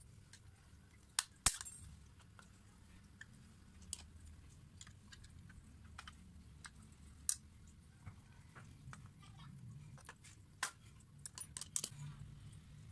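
Scattered sharp clicks and taps of a metal screwdriver and pin against a plastic car door handle assembly as its hinge pin is worked out. The loudest clicks come about a second and a half in, with a quick cluster near the end.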